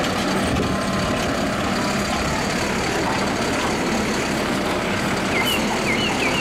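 Mack automated side-loader garbage truck running steadily, its engine and hydraulics working as the side arm lifts and tips a wheelie bin into the hopper. A few bird chirps come in near the end.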